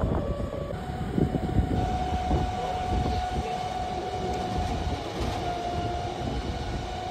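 Tour boat's motor running steadily under way, a constant whine over a low rumble.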